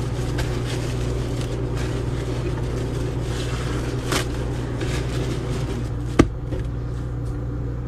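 A steady low hum runs throughout, with a few short wet squishes and one sharp click about six seconds in as a sponge soaked in thick soap-and-baking-soda foam is squeezed by hand in a sink.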